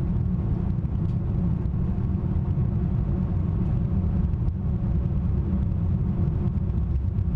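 Boeing 787 Dreamliner rolling along the runway at speed, heard from inside the flight deck: a steady, even low rumble of the ground roll.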